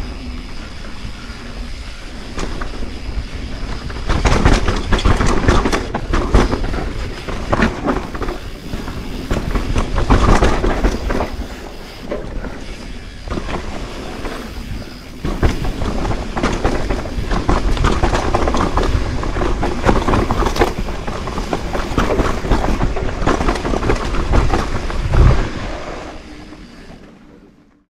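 Mountain bike descending a dirt trail: tyres rolling over loose dirt and leaves, with a steady rattling clatter of chain and bike parts over rough ground that swells and eases with the terrain. A sharp knock comes near the end, then the sound fades out.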